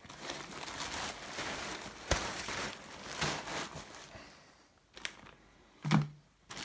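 Thin Dyneema (cuben fiber) tent fabric crinkling as it is bundled up and pushed aside, with a sharp click about two seconds in. It quietens, then a short, louder sound comes near the end.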